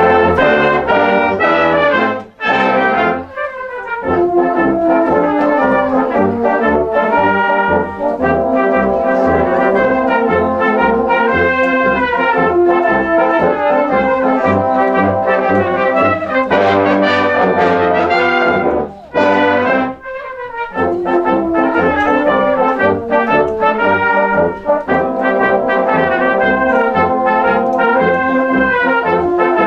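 Brass band playing a piece, with trombones, cornets and tubas, starting loudly all together at once. The music breaks off briefly about two seconds in and again about two-thirds of the way through before carrying on.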